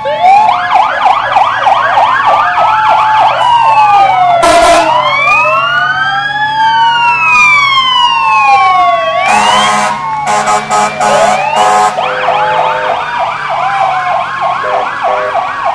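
Several fire truck sirens sounding at once as the trucks pass: fast repeated yelping sweeps overlapping slower wails that rise and fall. Loud horn blasts cut in about four seconds in and again several times near the middle.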